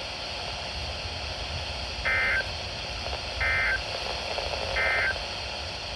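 NOAA Weather Radio SAME end-of-message code: three short, identical digital data bursts a little over a second apart, over steady radio hiss. It signals the end of the flood warning message.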